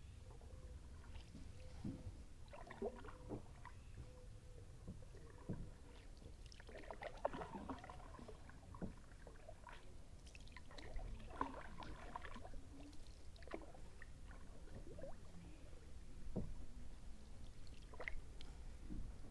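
Kayak paddle strokes on calm river water: the blades dip in with soft, gentle splashes and drips, coming thickest in two spells in the middle, over a faint low rumble.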